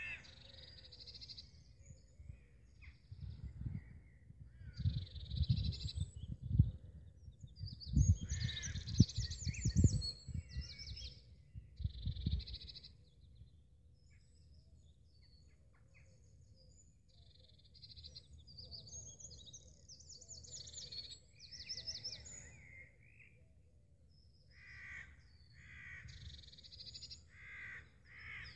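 Birds calling, with crows cawing among smaller chirping birds. In the first half, low rumbles on the microphone are louder than the birds.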